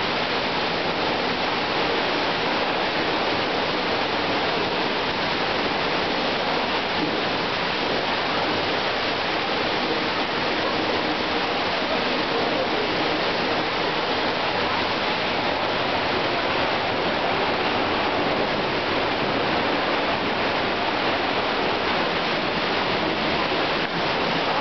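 North Falls waterfall pouring down: a steady, even rush of falling water that does not let up.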